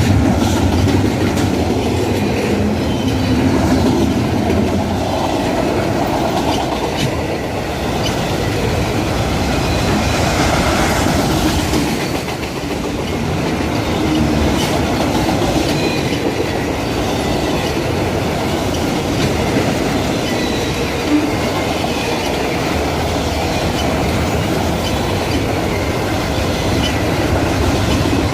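Freight cars of a container and autorack train rolling steadily past, wheels clicking over rail joints, with faint wheel squeal at times.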